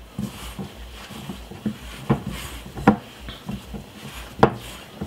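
A hand squeezing and working flour and water into a stiff dumpling dough in a glass bowl: soft squishing and rubbing, with a few sharp knocks against the glass, three of them louder.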